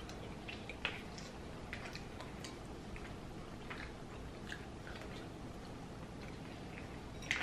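People eating: quiet chewing, with scattered soft clicks and scrapes of white plastic forks and a spoon against paper plates and a soup bowl. A slightly louder click comes near the end.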